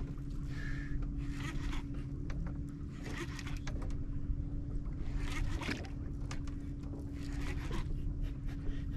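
Shimano Torium 16HG conventional reel being cranked in short bursts every second or two as a hooked fish, a threadfin bream, is winched up on a bent jigging rod. A steady low hum runs underneath.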